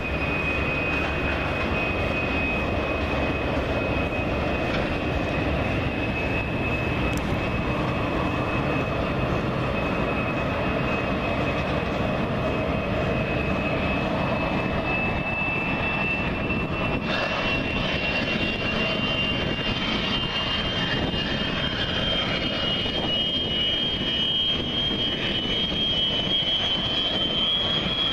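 Fouga Magister jet trainer's twin Turbomeca Marboré turbojets running as it taxis: a high turbine whine that rises slowly in pitch over a steady rushing noise.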